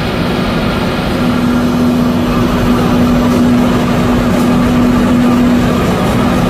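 DH TECH multi-station flexographic printing press for flexible packaging film, running: a loud, steady machine din with a constant low hum.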